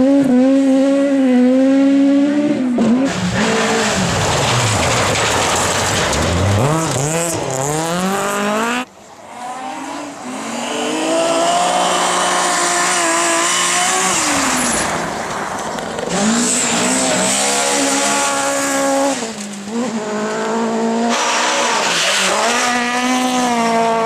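Group F rally cars' engines at full throttle on gravel stages, one car after another: the engine pitch climbs through each gear, drops at the shifts, and falls away as the driver lifts for the corners, with tyres scrabbling on the gravel.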